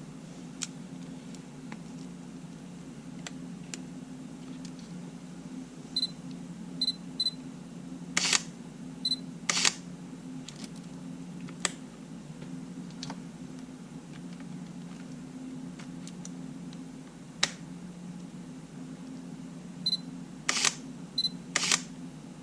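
Sony A7 camera test-firing: short high focus-confirmation beeps followed by loud mechanical shutter clicks, in two bursts of two shots each, one about six seconds in and one near the end. Fainter single clicks of handling and button presses fall in between.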